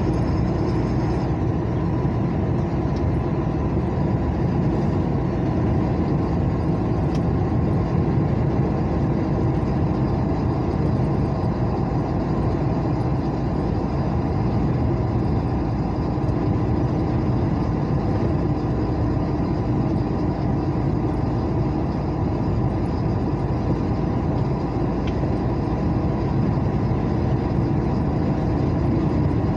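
Steady road and engine noise of a car cruising on a highway, heard from inside the cabin, with a constant low hum and no change in speed.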